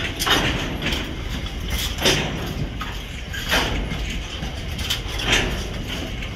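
Freight train wagons loaded with cement tank containers rolling past, wheels on steel rail giving a steady rumble. A clack from the wheels passing over rail joints comes every one and a half to two seconds, four times.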